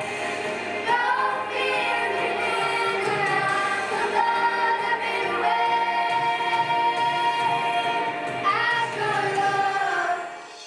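Music: a song with sung vocals over a steady backing, which fades out just before the end.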